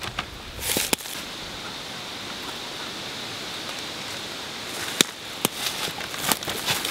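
Steady outdoor hiss with a few sharp crackles and clicks of a clear plastic bag being handled as freshly cut oyster mushrooms are put into it.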